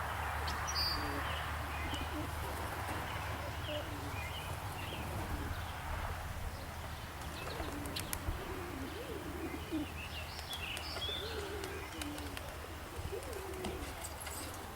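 Domestic pigeons cooing, repeated low warbling coos that come more often in the second half, with small birds chirping higher up in the background.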